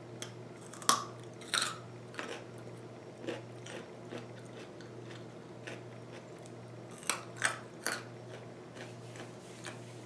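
A person biting and chewing crunchy food: a few sharp crunches about a second in and again about seven seconds in, with softer chewing clicks in between.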